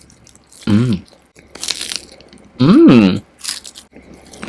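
Biting into crispy Jollibee Chickenjoy fried chicken, with short crunches of the coating, and two wordless hums from the eater, the second louder and longer.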